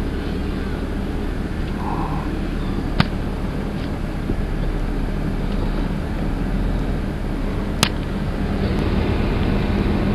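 Car engine running steadily as the car edges out of a snow-packed driveway, a low hum. Two short sharp clicks come about three and eight seconds in.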